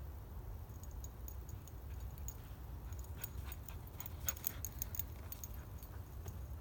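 Light metallic tinkling of a wind chime's tubes, scattered at first and busiest around four to five seconds in, over a steady low rumble.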